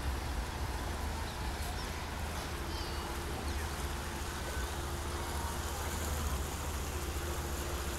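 Fountain jets splashing into a stone basin: a steady, even hiss of falling water over a low steady rumble.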